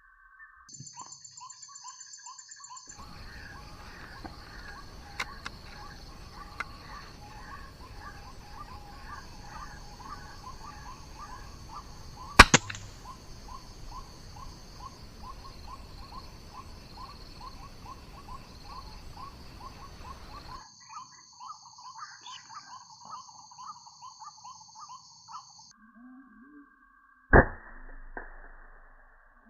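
Repeated calls of white-breasted waterhens (ruak-ruak) over a high insect-like buzz that switches on and off, broken twice by a sharp air-rifle crack, about twelve seconds in and near the end, the second louder.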